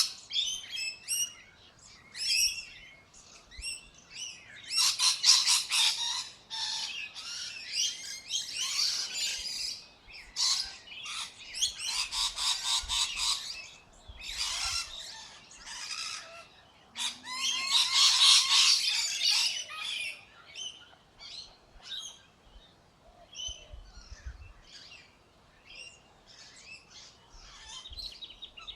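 Birds chirping and calling, with three louder spells of rapid, overlapping chirps and scattered single chirps between them.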